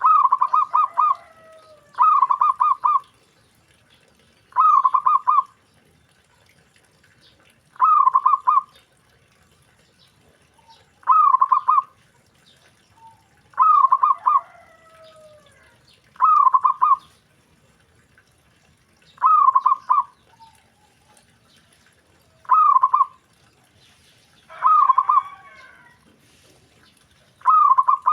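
Zebra dove (perkutut) cooing: a short, rapid, pulsing coo phrase repeated about every three seconds, eleven times. Fainter calls that slide in pitch overlap a few of the phrases.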